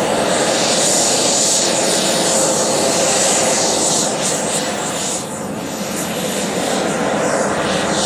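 Large radio-controlled model English Electric Lightning taxiing after landing, its twin jet engines giving a loud, steady high whine and exhaust rush. The engines dip briefly about five seconds in, then pick up again.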